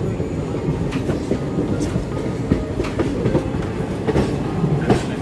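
Train running along the track, heard from on board: a steady rumble with wheels clacking over rail joints about once a second.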